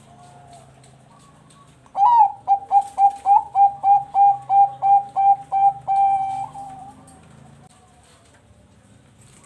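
Bangkok-line zebra dove (perkutut) singing: a faint coo near the start, then about two seconds in a loud run of quick staccato coos, about four a second, ending in a longer drawn-out note.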